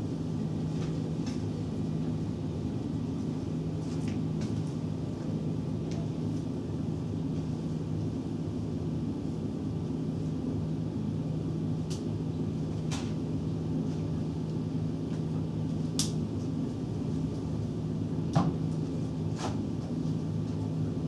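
Classroom room tone: a steady low hum, with a few scattered light clicks and taps.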